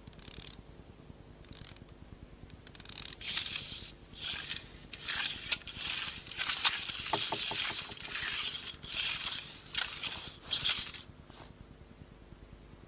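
A quick run of short rasping scrapes, about a dozen, starting about three seconds in and stopping about two seconds before the end, over a faint steady hum.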